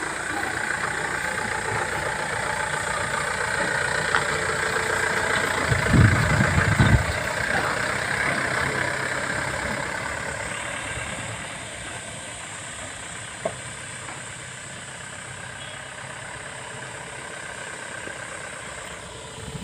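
4x4 vehicle's engine running as it crawls along a slippery mud track, with a couple of heavy low thumps about six to seven seconds in. The engine gets quieter about halfway through.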